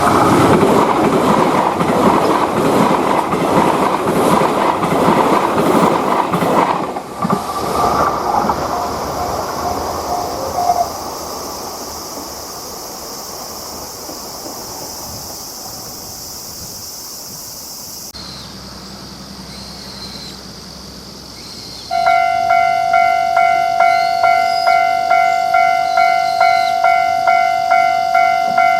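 A train running past a Japanese level crossing, its wheels clattering over the rail joints, with the crossing's warning bell still sounding for the first ten seconds or so; it then fades to a low hiss. About three-quarters of the way through, a crossing's electronic warning bell starts up with its kan-kan tone, ringing steadily about twice a second.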